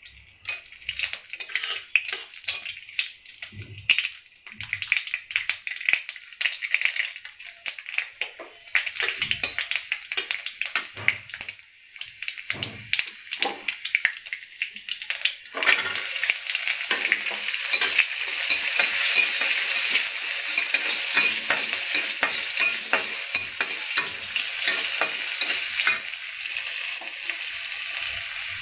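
Mustard and cumin seeds crackling and popping in hot oil in a stainless steel kadai, with a steel spatula scraping the pan. About halfway through, chopped shallots go into the oil and it breaks into a louder, steady sizzle as they are stirred.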